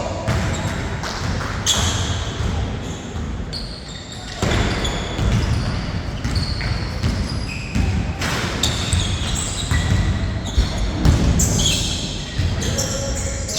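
Basketball bouncing on a court during a half-court game, a scatter of sharp knocks, with players' voices calling out over them.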